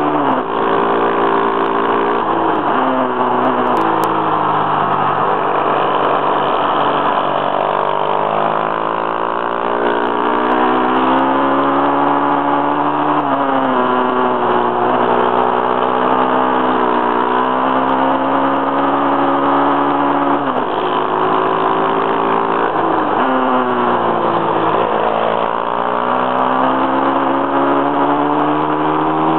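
Pit bike's small single-cylinder engine heard onboard at racing pace. Its pitch climbs steadily under throttle, then falls sharply when the throttle closes for the corners, several times over.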